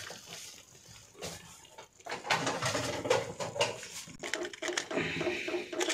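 Small clicks, scrapes and rustling as pieces of hardened dough seal are picked out of a cooking pot by hand. The handling starts about two seconds in and goes on in quick irregular bits.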